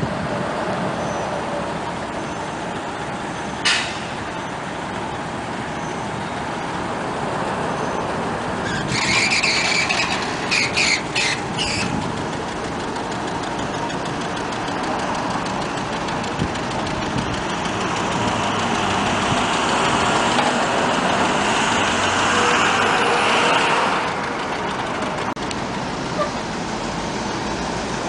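1964 Lincoln Continental convertible's power top mechanism cycling, its motors running steadily with a sharp click about four seconds in and a cluster of clicks and squeaks around ten seconds. A louder motor drone builds from about eighteen seconds and cuts off suddenly about four seconds before the end.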